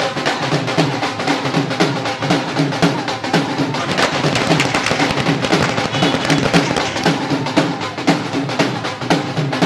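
Drums played in a fast, steady rhythm.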